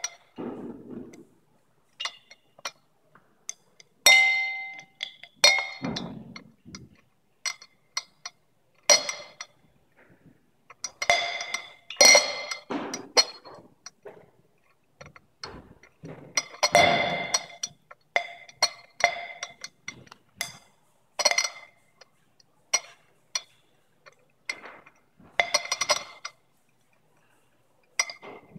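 Irregular sharp pops and crackles from ethanol being violently oxidised by manganese heptoxide where it meets concentrated sulfuric acid. Each pop sets the glassware ringing with a short clink. Dozens of pops come at random, some singly and some in quick clusters.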